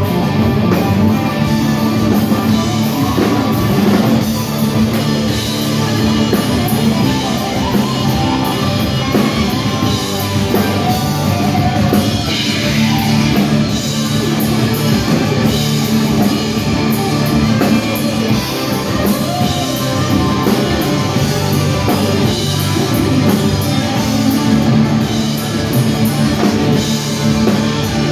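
Live rock band playing: guitars and drum kit, loud and steady.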